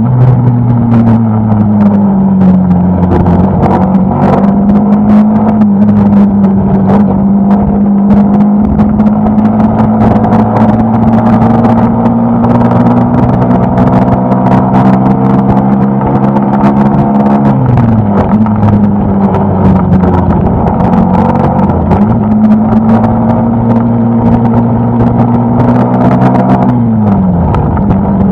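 Suzuki Gixxer SF250's single-cylinder engine running at a steady cruise in top gear, heard from the rider's seat with wind noise on the microphone. The engine note falls over the first couple of seconds, dips and climbs back about two-thirds of the way in, and falls again near the end as the throttle is eased.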